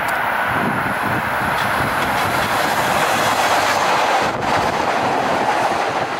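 Chicago 'L' Orange Line rapid-transit train running through, its wheels on the rails making a steady, loud noise.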